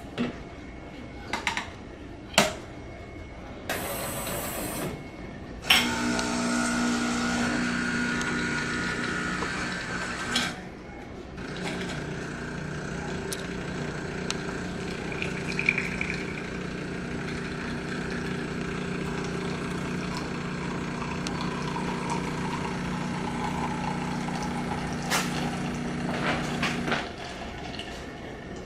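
Jura Z10 super-automatic espresso machine making a drink: a few clicks and a short hiss, then the built-in grinder running for about five seconds. After a brief pause the pump hums steadily for about fifteen seconds as the drink is brewed, stopping shortly before the end.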